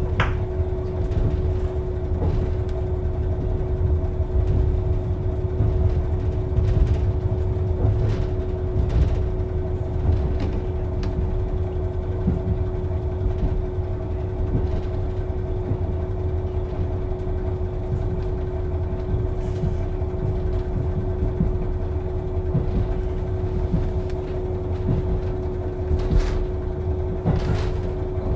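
JR KiHa 40 diesel railcar's engine idling steadily while the railcar stands at the platform: a low rumble with a constant hum.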